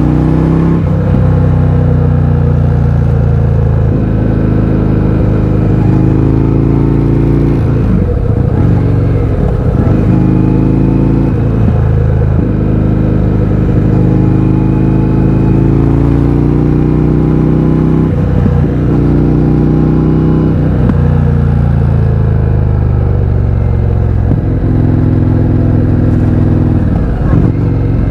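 Indian FTR 1200's V-twin engine through an Akrapovič exhaust with the baffles removed, accelerating hard and shifting up. The pitch climbs with each pull and drops sharply at each gear change, about eight times over the stretch.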